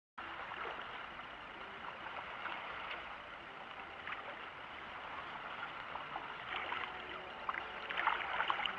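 Shallow seawater washing and sloshing around rocks at the shoreline, a steady wash with small splashes that grow busier near the end.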